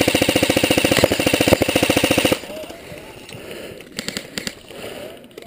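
Airsoft electric gun (AEG) firing a rapid full-auto burst, an even string of sharp shots that cuts off abruptly about two and a half seconds in. A few scattered single clicks follow.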